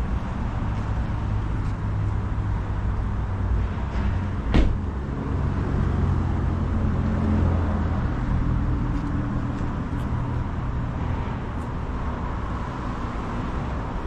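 Car engine running with a steady low exhaust rumble that swells slightly for a few seconds, and a single sharp crack about four and a half seconds in.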